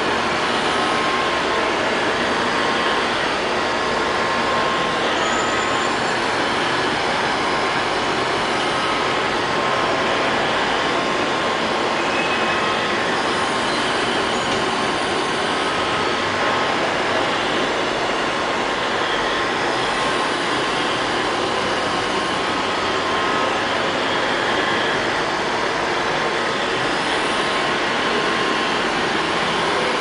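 LL-302 robot vacuum cleaner running: a steady whirring noise from its suction motor and brushes, at an even level throughout.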